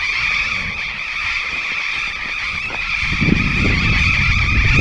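A large flock of burrowing parrots screeching all at once, an unbroken, shrill din. A low rumble joins about three seconds in.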